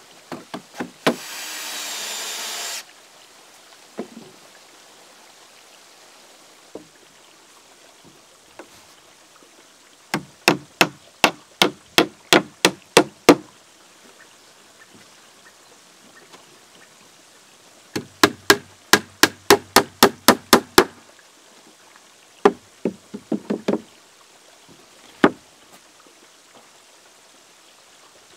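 Hammer blows on timber boards: two runs of a dozen or so quick, even strikes, about three or four a second, with a few scattered strikes after. A brief whir of a power tool comes near the start.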